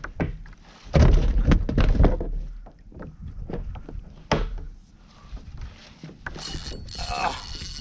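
Knocks and heavy thumps of a fish and gear being handled on a plastic fishing kayak, with sharp clicks, loudest about a second in. Near the end comes a steady hiss with a faint high whine, as line pays out from a spinning reel on a cast.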